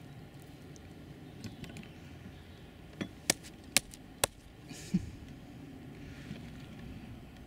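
Four sharp clicks about half a second apart, then a duller thump about a second later, over a low steady rumble.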